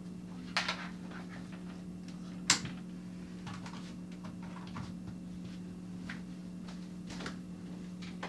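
Scattered small clicks and knocks of someone moving about a small room and handling things, over a steady low hum; the sharpest click comes about two and a half seconds in.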